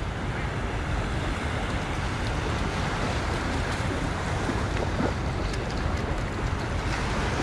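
Steady wash of small ocean waves breaking on the beach, with wind rumbling on the microphone.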